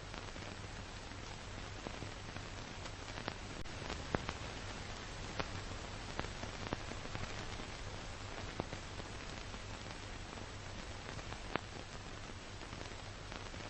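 Steady hiss with a low hum and scattered sharp clicks and pops: the surface noise of an old black-and-white film transfer that carries no recorded sound.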